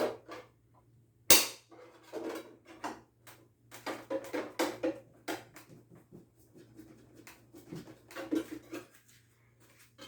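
A sharp knock about a second in, then a run of smaller knocks, clicks and scrapes as hand tools (screwdriver, spatula) work at the glued seams of a wooden speaker cabinet to pry it open.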